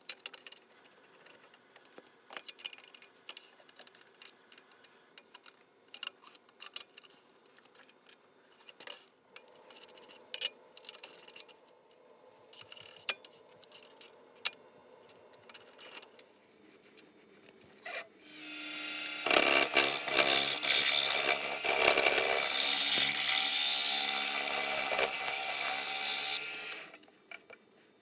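Scattered clicks and knocks of wood and metal being handled at a wood lathe. About eighteen seconds in, a loud power tool runs for about eight seconds with a steady whine and a harsh hiss, then stops.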